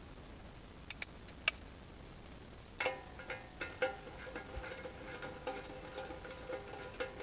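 Light metal clicks and taps, a few at first and then a steady run of them from about three seconds in, over a lingering metallic ringing: steel excavator bucket pins being handled and fitted into their holes.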